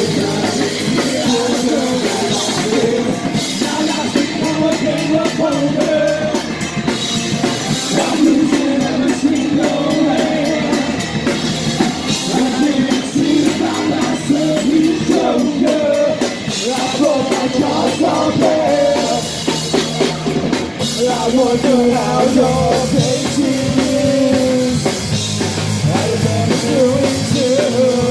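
Rock band playing live and loud: a drum kit pounding under shouted, sung vocals, with no break.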